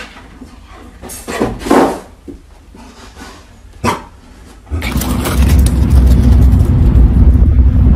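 A dog barking a few times, loudest about two seconds in. About five seconds in, a loud, steady low rumble starts suddenly and carries on.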